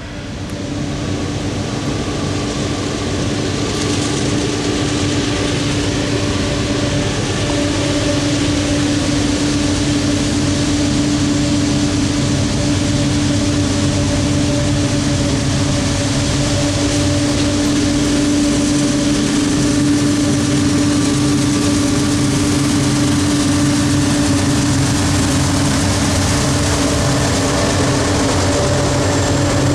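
Diesel locomotive running with a steady engine hum, louder over the first couple of seconds and then holding level.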